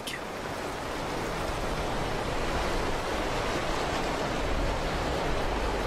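Steady rush of water: a river swollen by heavy rain running fast over rocky rapids.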